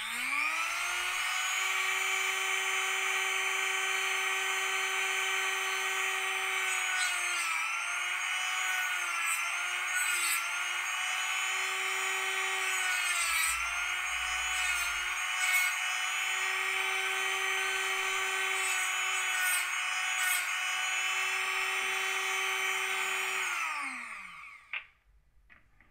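Dremel rotary tool with a 1-inch cutoff wheel running as a steady high-pitched whine, its pitch sagging several times as the wheel bites into the 1/8-inch smoked plexiglass. Near the end it is switched off and the whine falls away as it spins down, followed by a single click.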